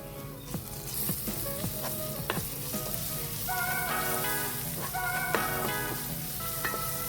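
Vegetable omelette frying in a pan, a steady sizzle that starts about a second in.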